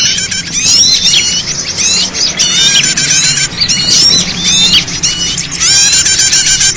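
Bird-lure recording: many small birds chirping and squawking in a dense, overlapping chorus of short, sharply hooked calls, with no pause.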